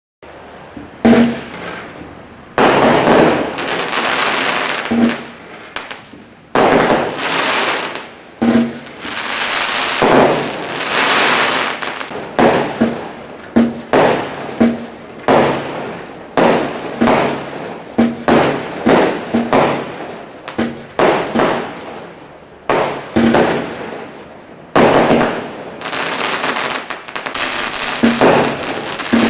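Standard Fireworks multi-shot firework cakes (Neutron Star, then Proton Storm) firing shot after shot, about one to two shots a second. Each shot is a sudden bang that trails off into hissing crackle, with a few short lulls between volleys.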